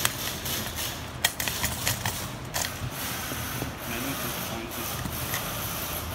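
Small metal hardware clicking and scraping as a stage-light omega bracket's nut, washers and quick-lock fasteners are tightened by hand and with pliers on a steel base plate. There is a run of sharp clicks in the first few seconds.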